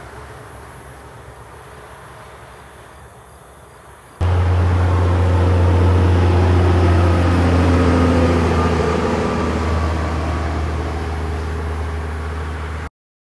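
Heavy tanker semi-trailer truck passing on a highway: a loud, low diesel drone with tyre roar, its whine falling in pitch as it goes by. Before it, about four seconds of fainter traffic noise fading as another truck drives away; the sound cuts off suddenly near the end.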